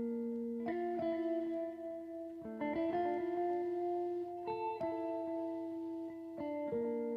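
Background instrumental music: held plucked chords, a new chord struck about every two seconds.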